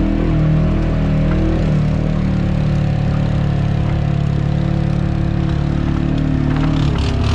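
ATV engine running at a steady, moderate speed while riding a dirt trail. Its note changes near the end, with a few knocks.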